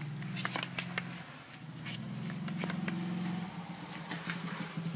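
A puppy's claws clicking on a wooden floor as it walks, a string of irregular sharp clicks over a steady low hum.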